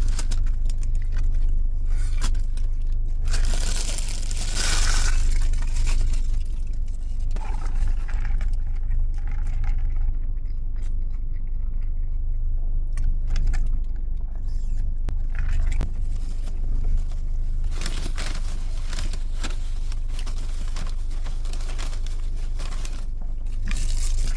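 Eating and handling of fast-food packaging: crinkling, scraping and tearing of paper wrappers and a box, with a louder rustle about four seconds in and a run of short crackles near the end, over a steady low hum.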